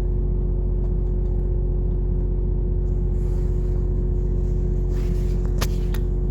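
Steady droning hum of running machinery, even in level throughout, with two short sharp clicks near the end.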